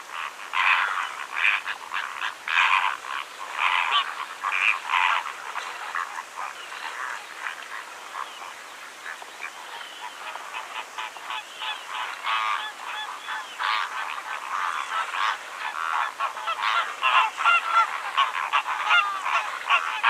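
A flock of flamingos honking: many short calls overlapping without a break.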